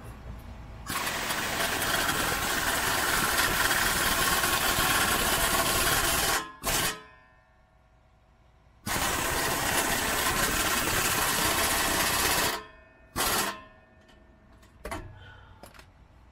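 Air impact wrench hammering on the rust-seized 16 mm nut of an exhaust clamp, which comes loose. It runs in two long bursts of about five and four seconds, each followed by a short blip of the trigger.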